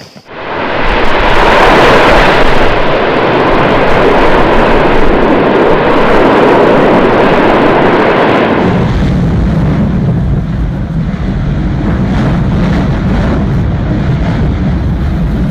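Volcanic eruption, a loud continuous roar that starts suddenly. About eight seconds in it turns into a deeper rumble.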